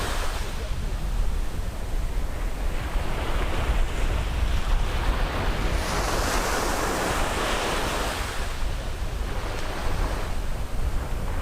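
Sea waves breaking and washing up a beach, the hiss of the surf swelling and fading in three surges a few seconds apart, over a steady low rumble.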